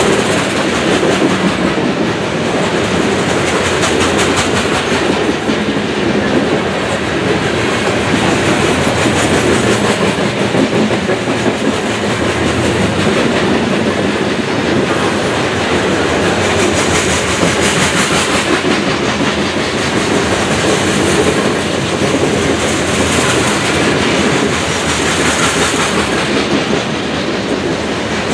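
A long string of coal hopper cars rolling past at speed: steel wheels rumbling and clacking steadily over the rails, with a high hiss that swells and fades every few seconds.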